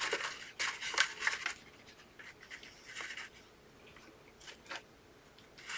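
Thick fake frosting being swiped and scraped into a textured finish: a quick run of scraping strokes in the first second and a half, another stroke about two and a half seconds in, then a couple of light clicks near the end.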